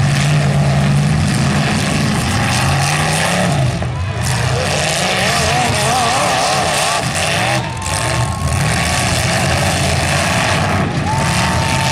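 Engines of full-size demolition derby cars running and revving together, loud and continuous, with pitch wavering up and down in the middle as drivers work the throttle.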